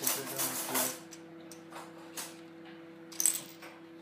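Small plastic Lego pieces clattering and clicking: a burst of rattling in the first second, then a few single clicks.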